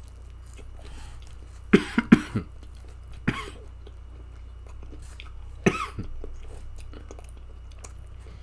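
A man coughs while chewing a mouthful of pizza: a quick run of three or four coughs about two seconds in, then single coughs or throat-clearings about a second later and again past the halfway point. Faint chewing sounds run between them.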